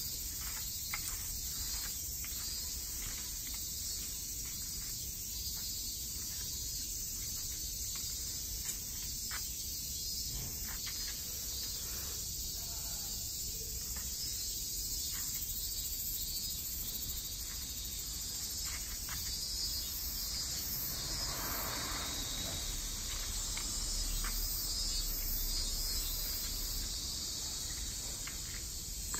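Steady, dense, high-pitched chorus of insects, with faint footsteps ticking underneath.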